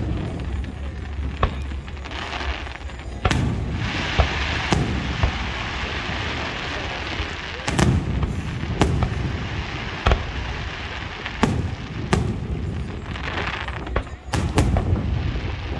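Aerial fireworks bursting: a string of sharp bangs a second or two apart, with crackling between some of them.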